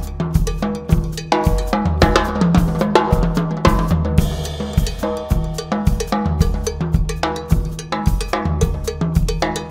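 Drum kit playing a Mozambique-style solo: a steady cowbell pattern over dense snare, bass drum and tom hits, with a cymbal wash about four seconds in.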